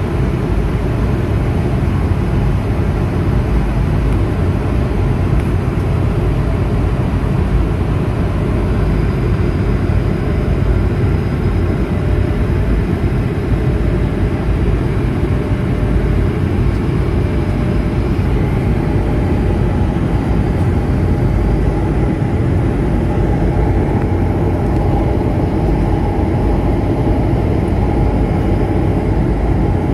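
Steady jet airliner cabin noise at cruise altitude: the low, even rumble of the turbofan engines and the air rushing past the fuselage, heard from a seat inside the cabin. A faint steady hum sits above it from about halfway through.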